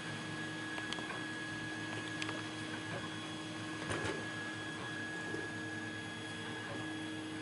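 Steady electrical hum with a few faint, light clicks of lock picks working inside a padlock's keyway.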